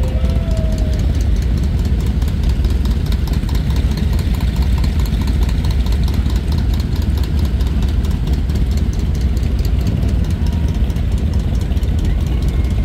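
A group of big motorcycles, mostly Harley-Davidson V-twins, idling together as one steady, low engine sound.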